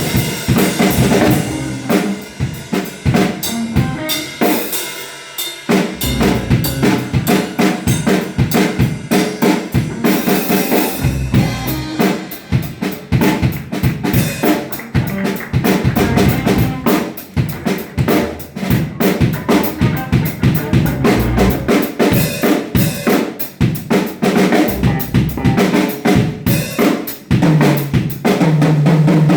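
Live band playing an instrumental funk groove, led by a busy drum kit with kick, snare and rimshots. The bass drops out briefly about five seconds in.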